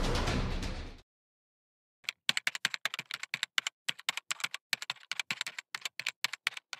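Background music ends abruptly about a second in. After a brief silence comes rapid, irregular clicking of computer keyboard typing, several keystrokes a second, through to the end.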